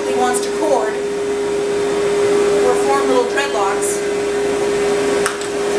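Speedy stand grooming dryer blowing at full force into a poodle's coat: a steady rush of air with a constant motor hum.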